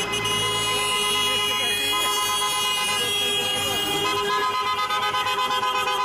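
Car horns of a slow-moving convoy honking together, several held notes overlapping in a steady chord, with fast repeated toots joining in over the last couple of seconds.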